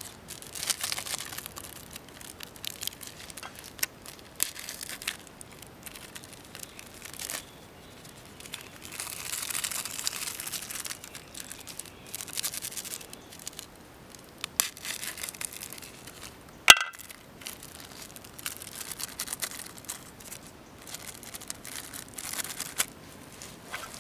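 Irregular bursts of crinkling and rustling while seasoning is added to instant noodles and they are mixed by hand on a metal tray, with one sharp click a little past the middle.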